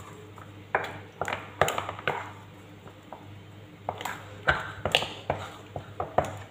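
A utensil knocking against a cooking pot in about ten sharp, uneven strokes while bula porridge is stirred, over a low steady hum.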